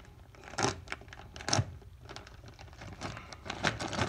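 Packaging being opened by hand: several short crinkles and rips, the loudest about half a second and a second and a half in, with a cluster near the end.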